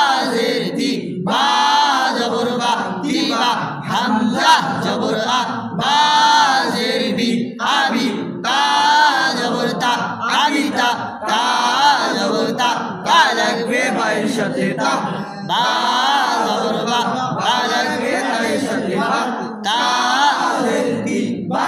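Voices chanting the spelling drill of Arabic letters with their vowel marks in a sing-song unison, in short repeated phrases with brief breaks between them.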